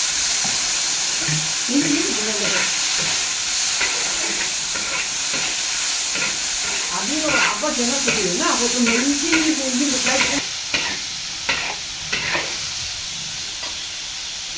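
Greens stir-frying in a wok: a steady sizzle, with the spatula repeatedly scraping and clacking against the pan. The sizzle drops a little about ten seconds in.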